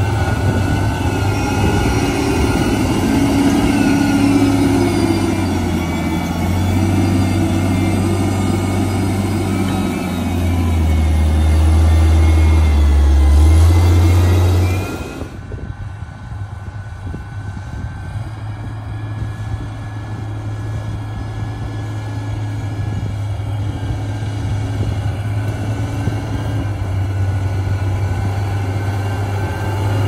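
LiuGong motor grader's diesel engine working under load close by, its note rising and falling as it pushes earth. About halfway through the sound drops suddenly to a quieter, more distant engine hum that grows louder toward the end as the grader comes closer.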